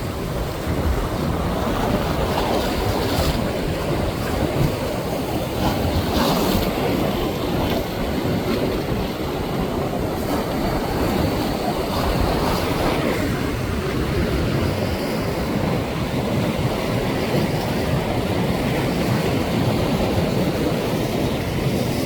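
Ocean waves breaking and washing ashore: a steady rush of surf that swells now and then.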